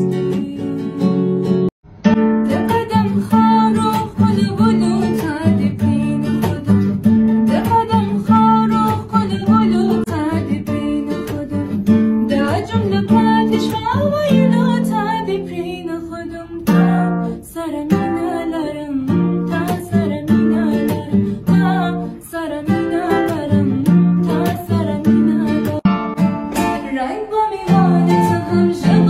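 A woman singing a Pashto song to strummed acoustic guitar. The sound breaks off sharply for a moment about two seconds in.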